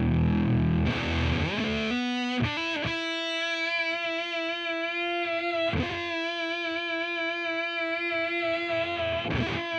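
Electric guitar through a Devi Ever Big Distortion Sound Machine fuzz pedal and a Laney VC30 valve amp: a heavy low fuzz chord, then a slide up to a single high note that is held and picked again twice. The note carries the fuzz's scrambled octave-up sound.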